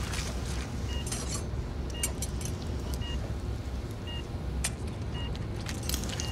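Operating-room patient monitor beeping about once a second with the heartbeat, over a low steady hum, with scattered light clinks of steel surgical instruments.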